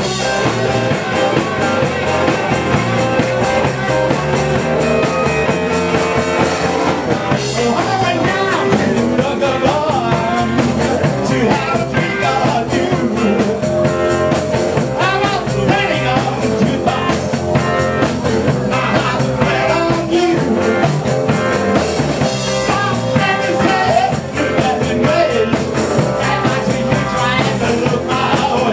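Live rock band playing loud, with electric guitar and a drum kit, heard from within the audience.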